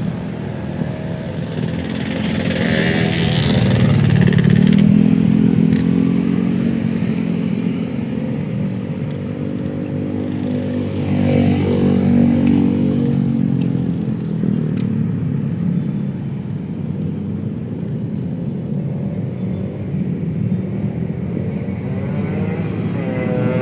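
Busy city street traffic: motorcycle and car engines running past in a continuous stream, swelling as louder vehicles pass about four and twelve seconds in.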